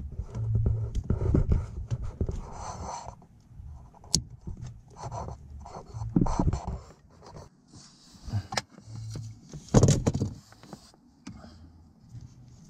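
Hands working a plastic wiring connector and loose wire under a car's dashboard: scraping and rustling with a few sharp clicks, the loudest a knock about ten seconds in.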